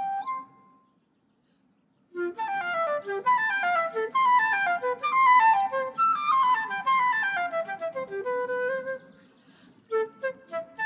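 Solo flute playing quick flowing runs of notes. The flute pauses for about a second near the start and again briefly near the end.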